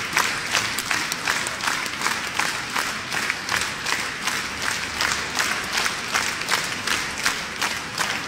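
Concert-hall audience applauding an ovation, the clapping falling into a steady unison rhythm of about two to three claps a second.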